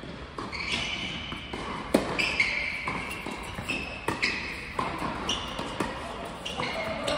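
Tennis rally on an indoor hard court: racquets striking the ball about five times at uneven intervals, the loudest hit about two seconds in, with high squeaks in between.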